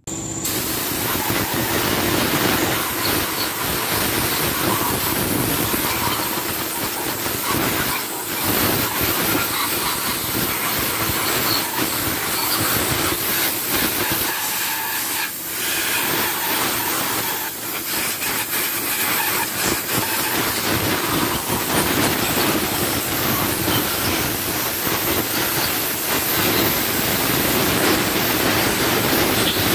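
Spray jet blasting over a bare cylinder head: a loud, steady hissing rush that starts abruptly and keeps going, with a few brief dips along the way.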